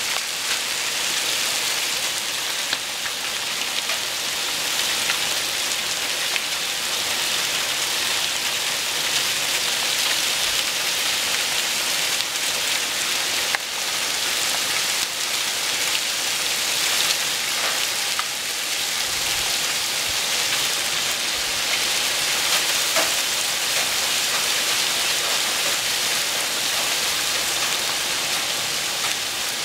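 Heavy rain mixed with small hail pouring down steadily: a dense, even hiss with a few faint ticks.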